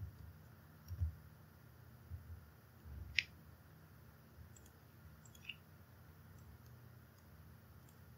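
Faint clicks and soft thumps of a computer keyboard and mouse in use, a few scattered through, with one sharper click about three seconds in.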